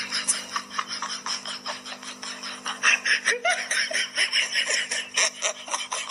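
A person laughing in rapid bursts, growing louder about halfway through.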